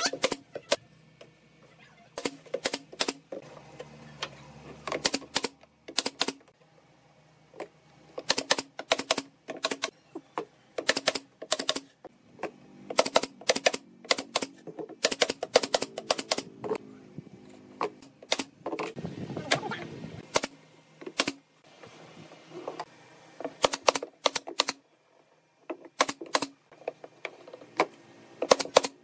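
Pneumatic brad nailer firing nails into pine roof slats: runs of sharp, quick clacks with short pauses between runs.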